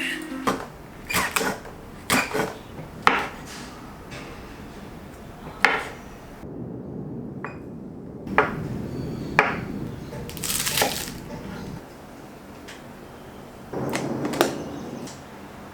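Kitchen handling sounds: a string of sharp clicks and knocks, as of dishes, containers and utensils being set down and handled, about a dozen over the stretch, with a few seconds of low rustling noise in the middle.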